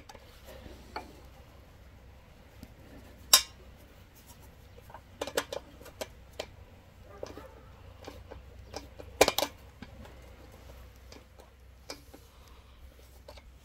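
Small steel spanner clinking and clicking against the new fuel tap's nut under a rotary tiller's fuel tank as it is tightened: a scattering of sharp metal clicks, the loudest about three seconds in and a pair a little past nine seconds, over a faint low hum.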